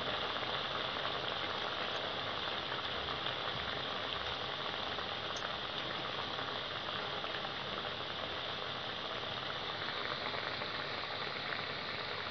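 Urad dal vadai deep-frying in hot sunflower oil in a kadai: a steady sizzling and bubbling of the oil around the fritters.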